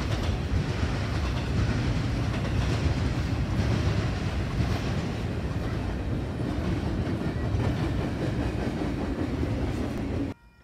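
Intermodal freight train of well cars loaded with trailers and double-stack containers rolling past: a steady, loud rumble of steel wheels on rail with faint knocks here and there. The sound cuts off suddenly near the end.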